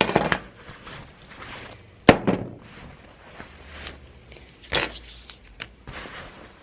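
A few sharp knocks and clatters with rustling between, the loudest about two seconds in: things taken out of work-clothes pockets and put down on a hard surface while laundry is sorted.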